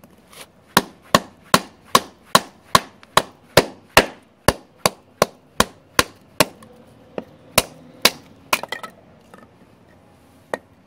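Batoning: a wooden baton striking the spine of a full-tang stainless steel Jack Pyke bushcraft knife to drive it down through a log. A steady run of about fifteen sharp knocks at about two and a half a second, then a few slower, scattered knocks and one last knock near the end.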